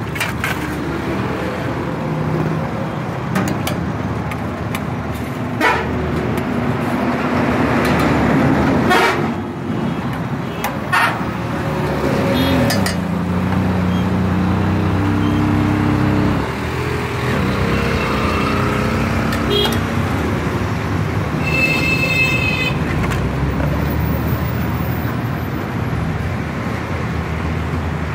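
Steady road traffic with vehicle engines running past, and a vehicle horn tooting briefly about three-quarters of the way through. A few sharp clinks of steel plates sound in the first half.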